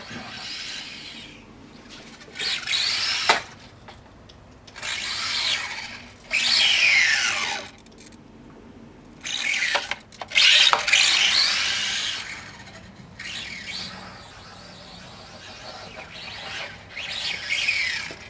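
Packaging being handled: irregular bursts of rustling and rubbing, with quick squeaky scrapes and a few clicks.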